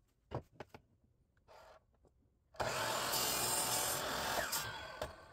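A few light knocks, then a power miter saw cutting through a pine framing board for about two seconds, starting abruptly and tailing off as the blade winds down.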